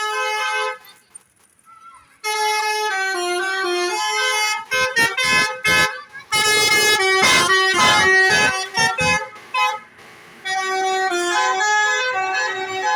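Telolet bus horn, a multi-tone musical air horn, playing quick stepping tunes in several runs, with a short break a second or so in. In the middle stretch the notes come as louder, harsher blasts.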